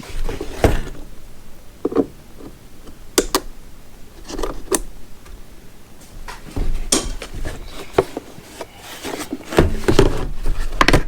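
Handling noise as a rivet gun kit and its packaging are unpacked: scattered clicks and knocks with stretches of rustling, busiest near the end.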